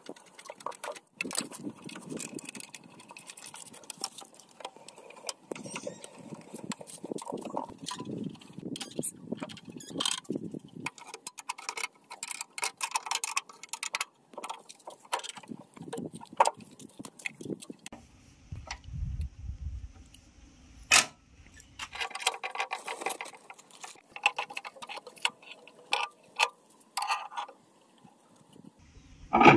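Irregular small clicks, taps and scratching as hands work at the metal panels and fittings of a power tiller, with one sharper click about two-thirds through.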